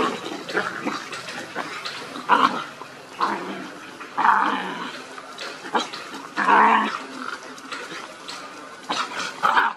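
Two dogs play-fighting, growling and snarling at each other in short loud bursts every second or two.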